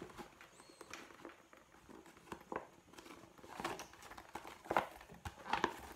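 Clear mesh-reinforced plastic zipper file bag crinkling and crackling as it is handled and folded, in scattered soft crackles that get busier in the second half.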